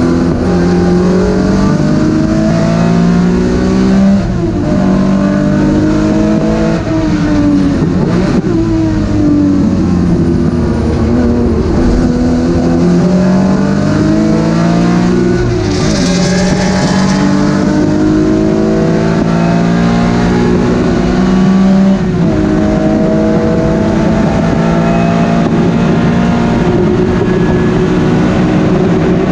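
Vintage Porsche 911 race car's air-cooled flat-six heard from inside the cockpit at high revs, its pitch climbing and dropping back several times with gear changes and lifts. It holds a steady high pitch at full throttle near the end, with a brief hiss about halfway through.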